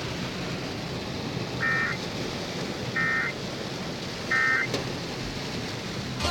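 Three short bursts of warbling digital alert tones, about 1.3 seconds apart, from a weather-radio emergency alert broadcast, the pattern of the Emergency Alert System end-of-message code sent three times. They sound over a steady hiss.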